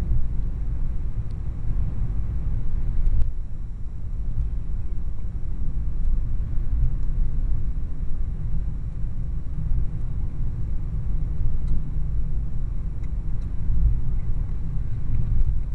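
A car driving along a country road, heard from inside the cabin: a steady low rumble of engine and tyres, with a few faint ticks.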